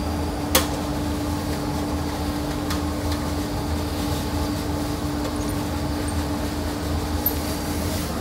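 Steady hum of workshop machinery with a constant mid-pitched tone running under it. There is one sharp click about half a second in, and two fainter ones around three seconds in, while the bandsaw's upper blade guide is raised.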